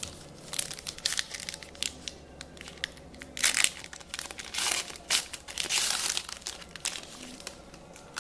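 Crinkly wrapper of a football trading-card pack being torn open and crumpled in the hands, a run of short crackles with a few longer, louder rips.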